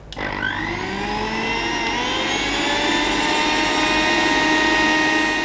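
Electric mixer grinder's motor starting up, its whine rising in pitch over the first couple of seconds, then running steady as it grinds roasted spices, onion, coconut and a little water into a wet masala paste.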